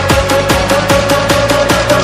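Electronic dance music with a steady kick-drum beat, quick hi-hat ticks and a held synth note.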